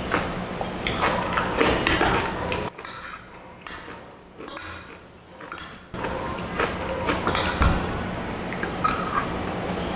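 Eating sounds: a metal spoon clinking and scraping against a glass baking dish as lomi noodles are scooped, in scattered short clicks. There is a quieter stretch from about three to six seconds in.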